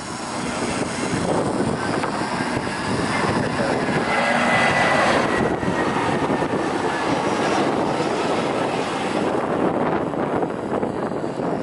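Airbus A320 jetliner on final approach with landing gear down, its jet engines passing close by: the noise swells to a peak about four to five seconds in, with a faint high whine, and eases off near the end.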